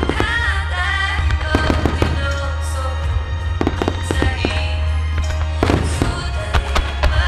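Fireworks shells bursting over accompanying music, with clusters of sharp bangs and crackles coming in several waves.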